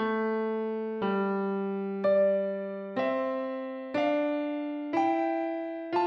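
Slow keyboard music: single notes struck about once a second, each fading away before the next, stepping upward in pitch after the first two.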